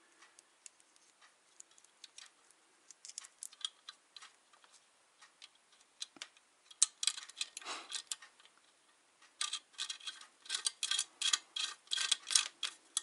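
Light metallic clicks and ticks of hand tools and bolts while a motor is being bolted onto its mount, sparse at first, then a quicker, fairly regular run of clicks over the last few seconds.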